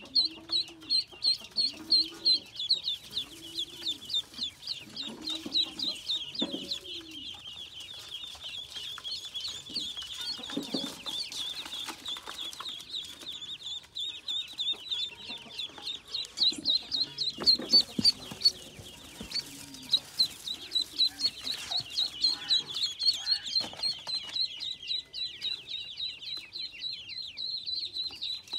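Many ducklings peeping at once: a dense, unbroken chorus of quick, high peeps. Beneath it, during the first six seconds or so, a low call repeats about once a second.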